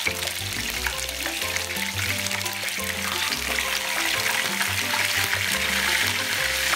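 Fish sizzling in hot cooking oil in a frying pan, the sizzle growing louder about halfway through as a second piece, a fish head, goes into the oil. Background music with a steady bass line plays underneath.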